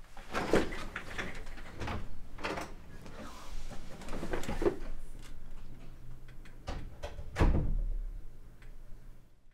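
A run of separate knocks and bumps, like things being handled, with the loudest a heavy thump about seven and a half seconds in.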